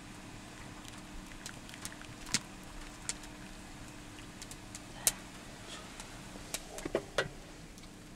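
A plastic ladle and tea bowls being handled as tea is poured: scattered light clicks and knocks, about half a dozen, over a low steady hum.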